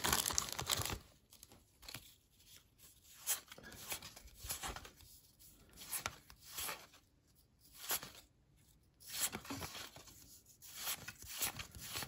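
A football card pack wrapper being torn open and crinkling, loudest in the first second. After that come short, soft rustles and slides of the cards being handled, about once a second.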